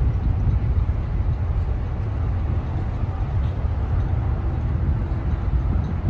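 Strong wind buffeting the microphone in a continuous low, fluttering rumble. Under it is a faint steady hum from the passing lake freighter Edwin H. Gott.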